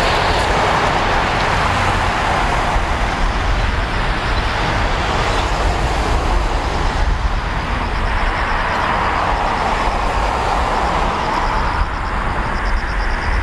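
Jet airliner engines running, a loud steady noise with a deep rumble that swells and eases slowly.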